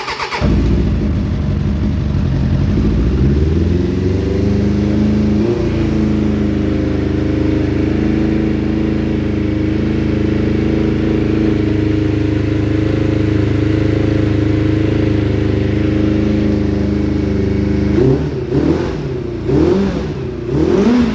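Suzuki Bandit 600's carburetted inline-four starting cold on choke. It catches at once, its revs climb over the first few seconds to a steady fast idle, and it is blipped up and down a few times near the end.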